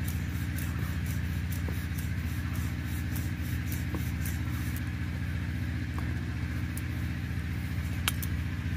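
A steady low mechanical hum, like a motor running, with faint scattered clicks over it.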